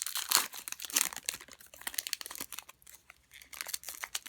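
Baseball cards being flipped through by hand: quick crisp rustling and snapping of card stock, busiest in the first two seconds, easing off about three seconds in, then picking up again.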